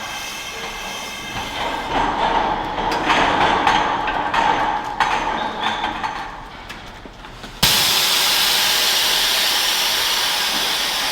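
Milking parlour equipment running, with scattered clicks and clanks over a steady mechanical noise; about two-thirds of the way in a loud, steady hiss starts suddenly.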